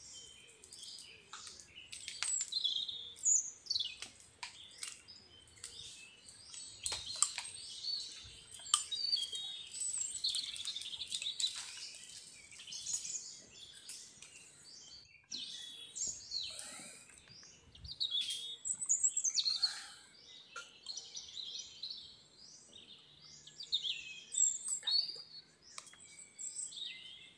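Many birds chirping and calling at once, a busy chorus of high chirps and trills, with scattered short sharp clicks.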